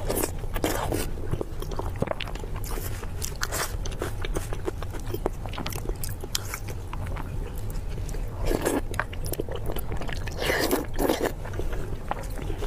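Close-miked eating: a person biting into and chewing soft, saucy braised rolls, with many small wet clicks and smacks. The mouth sounds grow louder and denser about two-thirds of the way through and again near the end, over a steady low hum.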